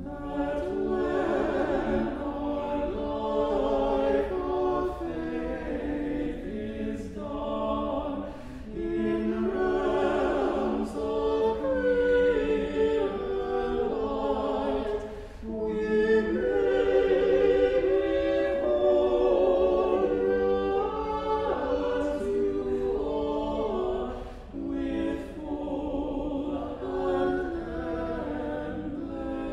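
Small men's choir singing unaccompanied in several parts, holding long notes and moving phrase by phrase with brief breaths between.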